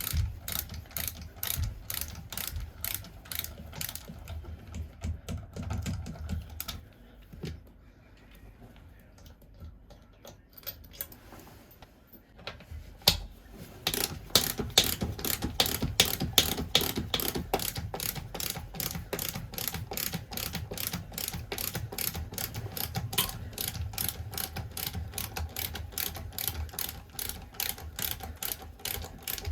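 Ratchet mechanism clicking in a quick, steady rhythm of about three clicks a second. It fades out for several seconds in the middle, then resumes louder.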